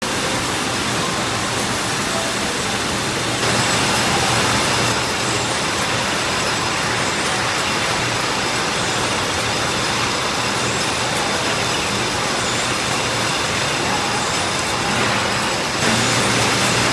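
Steady machine noise of a running packaging line, conveyors and labelling machinery, with a constant low hum. It swells briefly about four seconds in and again near the end.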